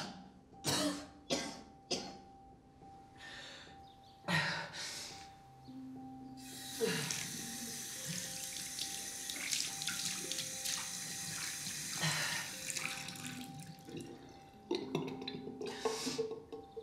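A bathroom sink tap running for about five seconds in the middle, over a steady, low music tone. Before and after it come several short, sharp bursts of sound.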